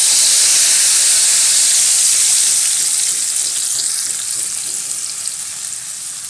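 Wet ground chili spice paste frying in hot oil in a wok, a loud steady sizzle that eases gradually after about two and a half seconds as the paste settles into the oil.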